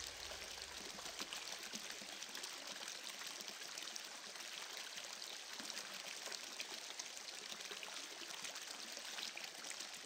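Faint, steady rush of flowing water, with fine trickling and splashing throughout.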